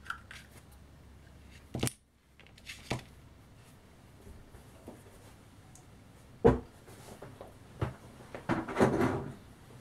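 Clicks and knocks of a GoPro Hero5 Session's small plastic parts being pulled apart and handled on a tabletop. A few sharp clicks come first, then a loud knock partway through and a short burst of rattling and scraping near the end.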